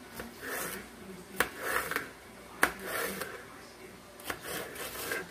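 Chef's knife slicing a green bell pepper on a cutting board: a series of short scraping cuts, with two sharp knocks of the blade against the board about one and a half and two and a half seconds in.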